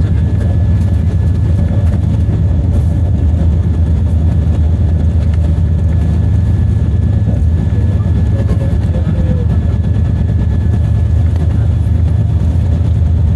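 A car in motion gives a loud, steady low drone and rumble, the noise that is being shown as a failing wheel bearing. A faint steady high whine sits above it.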